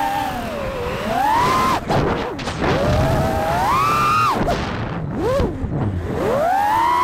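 FPV quadcopter's brushless motors whining, their pitch sweeping up and down with the throttle. It climbs about a second in and again around three to four seconds, drops sharply after, and rises once more near the end, with short rushing noisy gaps between.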